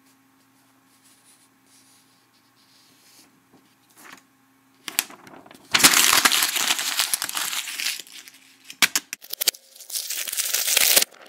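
Sheets of paper crumpled and rustled right against the microphone. Quiet at first, then loud crinkling from about five seconds in, a few sharp crackles, and another loud stretch of crinkling near the end that cuts off suddenly.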